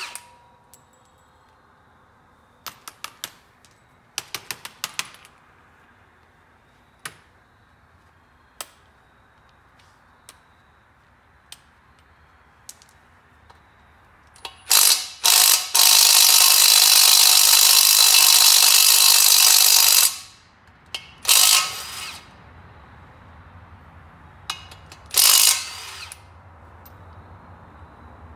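A ratchet working the bolts at the back of a small-block Chevy crankshaft. First come scattered clicks and short runs of ratcheting. Then comes a loud burst, followed by about five seconds of steady powered running, and two more short loud bursts near the end.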